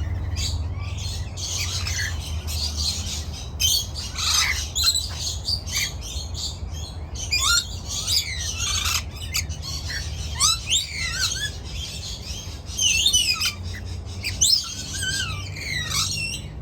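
Budgerigars chattering continuously: rapid squawks and chirps with quick rising and falling whistles, over a steady low hum.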